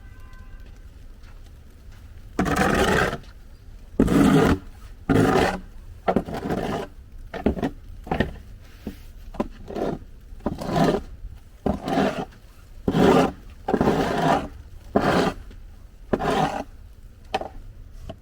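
Repeated rough scraping strokes, about one a second, each lasting around half a second, over a steady low rumble.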